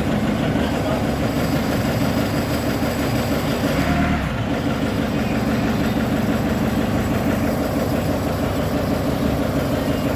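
Forklift engine running steadily at idle, with a brief low swell about four seconds in.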